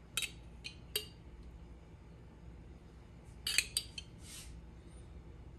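A spoon clinking lightly against a dish as green salsa is spooned onto tacos: three clicks in the first second, a quick cluster of clinks about three and a half seconds in, then a brief scrape.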